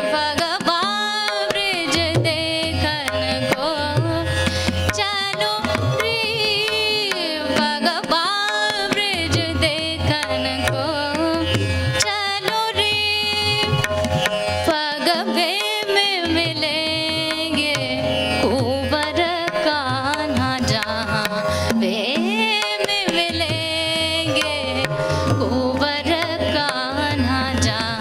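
A woman singing Hindustani classical vocal music in long, sliding, ornamented phrases, accompanied by tabla strokes, over a steady drone.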